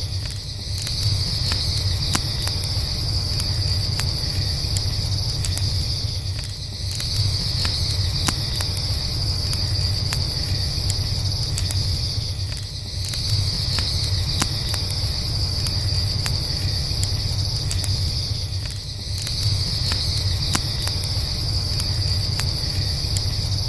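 Night ambience: crickets chirping in a steady high band that swells and eases about every six seconds, over a low rumble, with scattered small crackles from a campfire.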